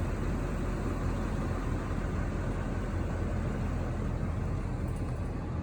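Steady low rumbling noise with a hiss over it, even throughout.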